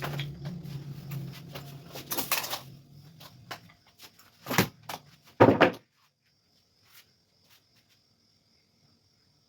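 A low hum fading out over the first few seconds, with three loud knocks, the last two close together. Afterwards only a faint, steady, high-pitched tone remains.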